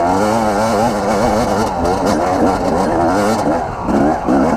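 Two-stroke dirt bike engine revving up and down over and over as the bike climbs a steep dirt hill under throttle.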